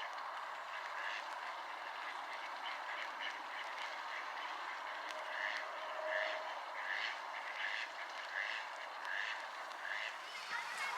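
Ducks quacking repeatedly, short calls coming about once a second, over a steady hiss.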